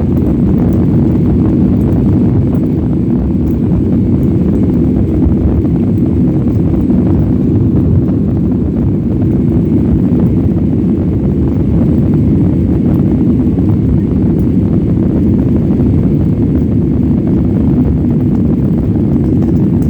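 Boeing 767-300ER engine and airflow noise heard inside the passenger cabin during the climb after takeoff: a loud, steady low rumble.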